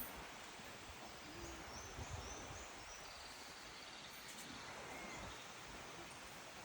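Faint jungle ambience: a steady hiss of background noise with a short run of small high bird chirps about a second and a half in.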